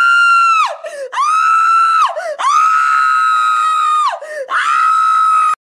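A person screaming in four long, high-pitched held screams, each dropping in pitch as it breaks off; the last cuts off suddenly near the end.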